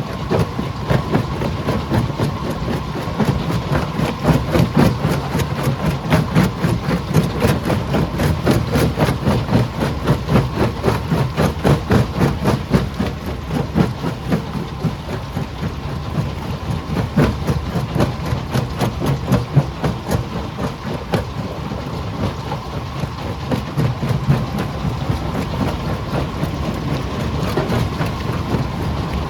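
Stone crusher running under load, with a heavy low rumble, a steady whine, and continuous rapid clatter and knocking of rock being broken.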